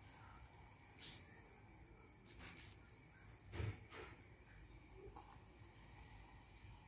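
Flour being poured into a saucepan of liquid: a few short soft hisses over near silence, with a dull knock about three and a half seconds in.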